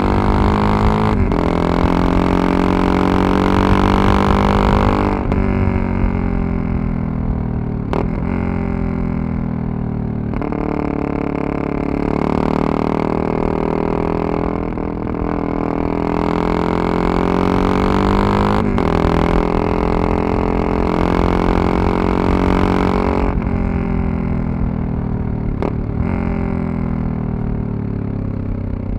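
Yamaha MT-03 660's single-cylinder engine and exhaust pulling under way, a steady drone whose pitch drifts up and down, cut by short breaks every few seconds, over low wind rumble.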